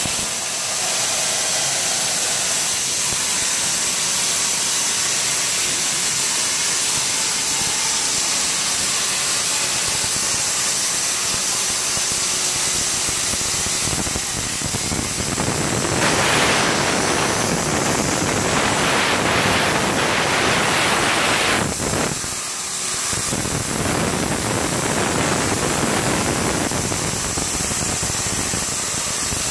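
CNC plasma cutter torch hissing steadily as it cuts, louder for several seconds past the middle, then briefly dropping about 22 seconds in before the hiss resumes.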